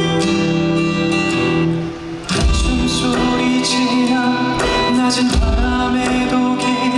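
Live band music: strummed acoustic guitar carrying the song, then a beat with bass and drum hits comes in about two and a half seconds in.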